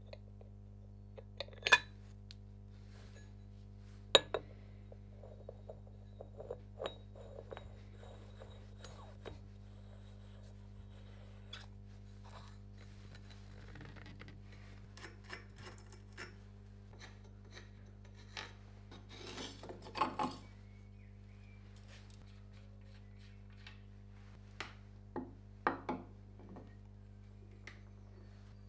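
Hands handling a grinding wheel and its metal wheel adaptor: scattered clicks, knocks and rubbing as the left-hand-threaded flange is screwed together, with a few sharp clicks standing out, over a steady low hum.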